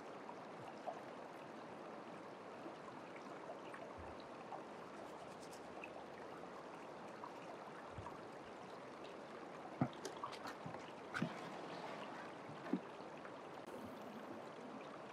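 Shallow creek water running steadily over stones and through a small sluice box, with a few light clicks and knocks about two-thirds of the way in.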